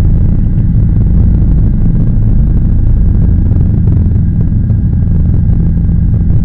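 Helicopter engine and rotor noise: a loud, steady low drone with several fixed hums.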